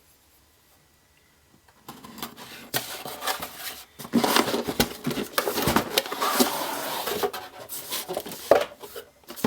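Retail packaging being opened and its contents handled: rustling and scraping with many small clicks and knocks, starting about two seconds in.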